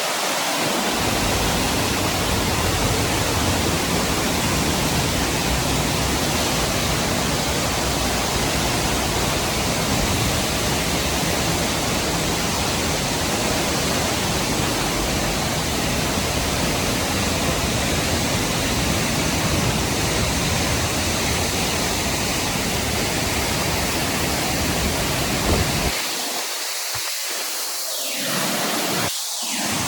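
Gljúfrafoss waterfall pouring: a loud, steady rush of falling water. Near the end the deep part of the rush drops away briefly twice.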